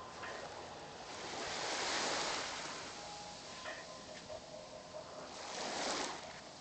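Small waves washing in at the water's edge, the hiss of the wash swelling twice: around two seconds in and again near the end.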